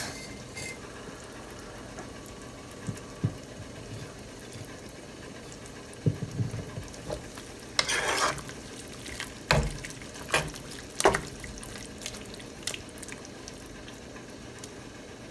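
A spoon stirring a pot of soup, with a few scattered knocks and clinks against the pot and a brief swish about eight seconds in, over a low steady background.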